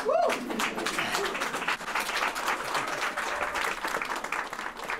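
Audience applauding: a dense run of clapping that starts abruptly after a speaker finishes a point.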